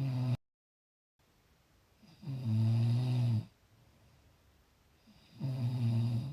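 Snoring: three low, pitched snores about three seconds apart, each lasting about a second. The first is cut off abruptly by a moment of dead silence.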